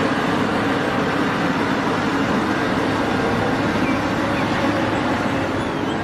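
A Cat 6015B hydraulic mining excavator's diesel engine running steadily: a low, even hum under a constant rush of noise.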